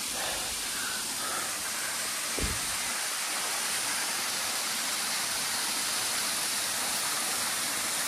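Waterfall rushing steadily, a constant hiss of falling water, with one short low thump about two and a half seconds in.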